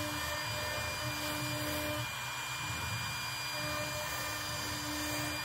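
CNC router spindle running with a steady high whine while its bit engraves lines into an MDF sacrificial board, over a low rumble. A lower tone comes and goes in stretches of about a second as the machine's axes move the cutter.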